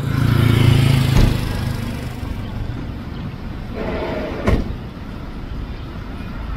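Minivan's rear tailgate swung down and slammed shut about a second in, followed by a single sharp knock a few seconds later, over steady street traffic noise.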